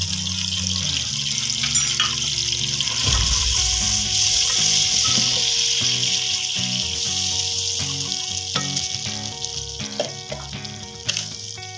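Gram flour and chopped garlic frying in hot fat in a steel pot as they are stirred with a wooden spoon: a steady sizzle, strongest a few seconds in and easing off toward the end, with a few light spoon taps near the end. Background music plays underneath.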